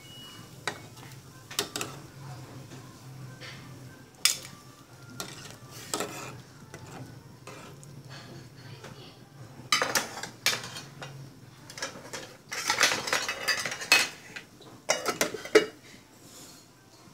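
Metal spoon clinking and scraping against a metal cooking pot as fish are stirred in boiling water: scattered single knocks, then longer runs of scraping and clatter about two-thirds of the way through. A low steady hum sits underneath until about eleven seconds in.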